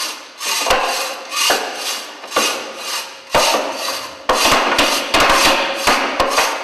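Wooden stage boxes and boards knocked and scraped on a wooden stage floor. Each sharp knock is followed by a brief scrape. They come about once a second at first, then faster and closer together in the second half.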